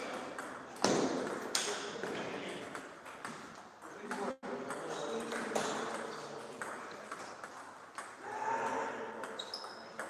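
Table tennis rally: the ball clicking sharply and irregularly off the bats and the table, with voices in the hall behind.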